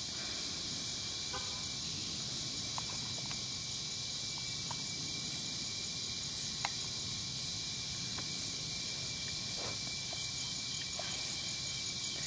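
Steady evening insect chorus, a dense high hiss with a thin steady tone under it. Short high chirps come about once a second in the middle.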